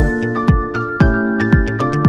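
Instrumental background music: held synth chords over an electronic kick drum beating about twice a second.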